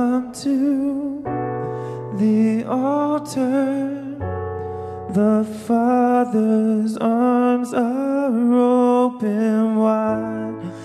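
A man and a woman singing a slow worship song over a Roland FP-7 digital piano, the voices coming in phrases with short breaks between them.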